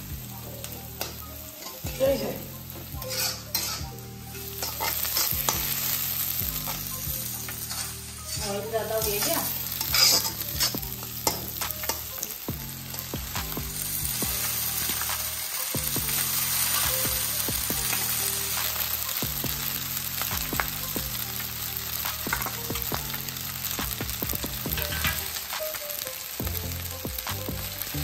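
Chopped onions and green capsicum sizzling in oil in an iron wok while a metal spatula stirs and scrapes them, with sharp clacks of metal on the wok. Boiled noodles are added partway through and tossed, and the sizzling goes on.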